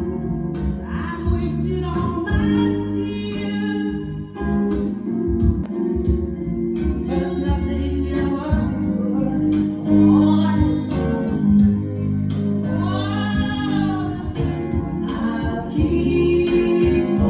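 A song with singing over heavy bass, played through a home speaker box built around a Taramps T-600 10-inch subwoofer and FH-300s 6-inch speakers.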